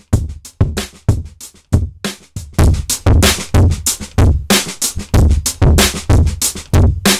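A drum loop playing, clean at first. About two and a half seconds in, the same beat continues through a digital sigmoid-function distortion, and the hits become louder and held, with little gap between them.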